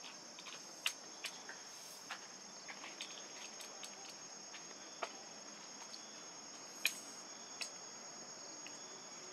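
Faint, steady high-pitched insect chorus, crickets or cicadas, in forest, with a few scattered light clicks, the sharpest about seven seconds in.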